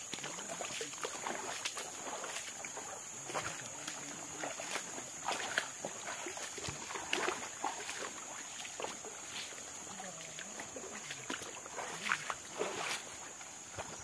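Footsteps of people walking along a rocky creek bed, shoes knocking and scuffing irregularly on stones and wet sand, over a steady high-pitched whine.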